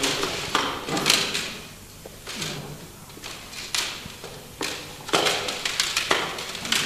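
Plastic CD cases clattering and scraping in irregular bursts as they are rummaged through and pulled out.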